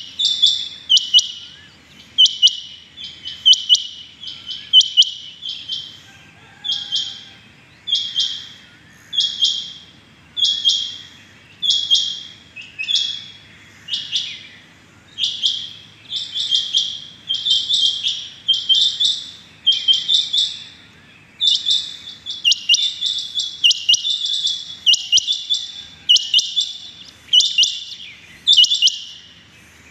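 Rain quail calling: a sharp, high double note repeated about once a second, the calls coming thicker and overlapping in the second half.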